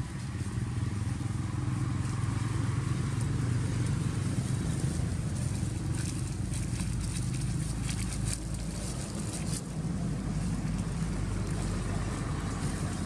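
A steady low motor rumble, like a nearby engine running, throughout. From about six to nine and a half seconds in, a run of dry leaves crackling and rustling is heard over it.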